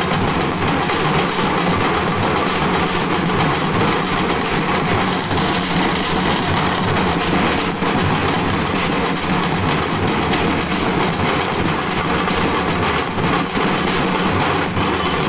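Street drum band of large frame drums beaten with sticks, playing a fast, dense, continuous rhythm.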